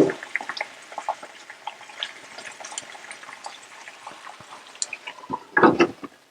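Chicken in thick gravy simmering in a tawa pan on low heat, with scattered small pops and sizzles as the gravy reduces. A louder thump comes near the end.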